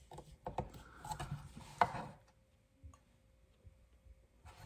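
Faint clicks and light knocks from a guided knife-sharpening rig being handled, mostly in the first two seconds, with a single click later on.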